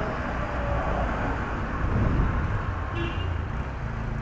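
Road traffic noise: a motor vehicle engine running with a low steady drone over a haze of road noise.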